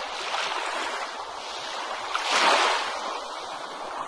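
Ocean surf washing on a beach: a steady rush of waves, with one wave swelling and breaking about two and a half seconds in.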